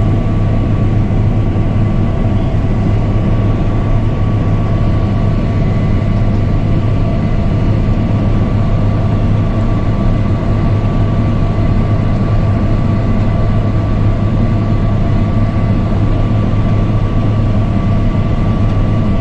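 Case combine harvester running steadily while harvesting, heard from inside the cab: a constant low drone from its Iveco diesel engine and machinery, with a faint steady whine above it.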